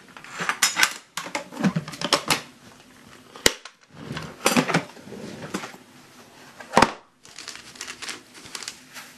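Shotgun shells and desiccant packs being handled and packed into an ammo can: irregular clicking, clinking and rustling, with a few sharper clicks.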